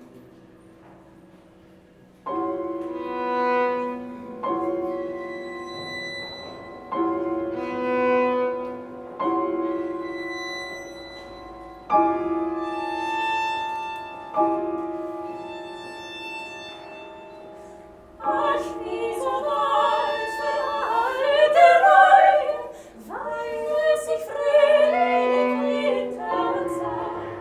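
Classical music: a series of long held notes, each starting abruptly and swelling, then from about two-thirds of the way through, women's voices singing classically with wide vibrato.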